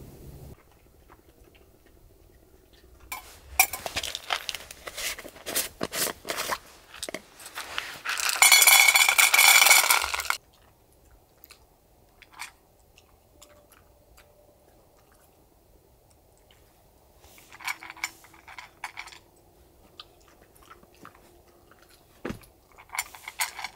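A dog crunching and chewing food from a stainless-steel bowl, in bursts of crunches with pauses between. The loudest, densest stretch comes about eight seconds in and lasts about two seconds.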